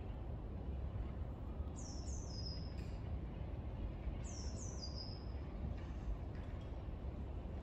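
Small songbird calling twice, each time a quick run of three high, thin whistles that fall in pitch, over a steady low background rumble.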